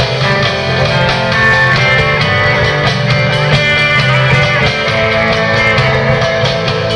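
Instrumental rock band playing a guitar-led tune: electric guitar carrying the melody over a steady drum beat.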